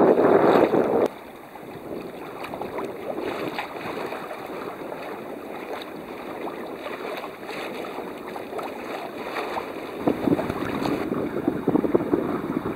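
Wind buffeting the microphone and lake water splashing against the hull of a moving sailboat. It is loud at first, drops suddenly about a second in to a softer wash of water, then grows louder again near the end.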